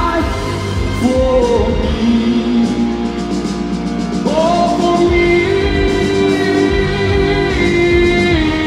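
A male singer singing live into a handheld microphone over band music with drums and bass. The melody glides in the first half and moves to long held notes after about five seconds.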